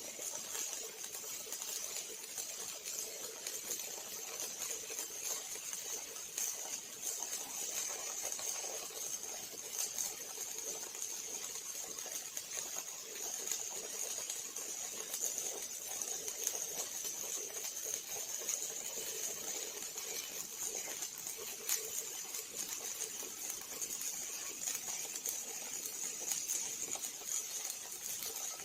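Steady crackling hiss with a dense, irregular patter of small clicks, typical of a robot's arc welding torch running a weld.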